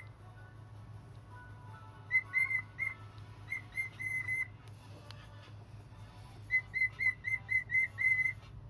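Cockatiel whistling in three bursts of short, high notes on much the same pitch, the last a run of about seven notes near the end.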